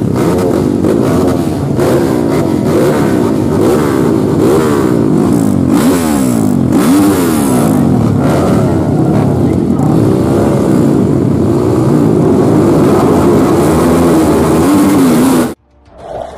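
Several dirt bike engines revving together, their pitches rising and falling and overlapping as the throttles are blipped. The sound cuts off suddenly near the end.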